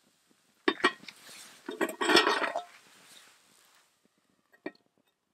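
Metal cookware lid clanking as it is picked up and set over a camp frying pan on a small wood-burning stove: two sharp clinks, then a short loud clatter of metal on metal, and one more clink near the end.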